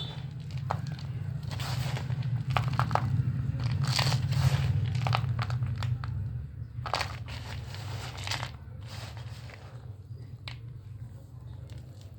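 Dry clay being crumbled and crushed by hand: a run of irregular crunches and crackles, dense in the first half and thinning out towards the end, over a steady low hum.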